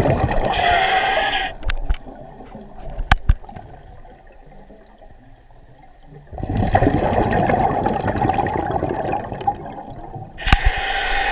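Scuba diver breathing underwater through a regulator: a short hiss about half a second in and again near the end, and a longer rush of gurgling exhaled bubbles in the middle, with a few sharp clicks between.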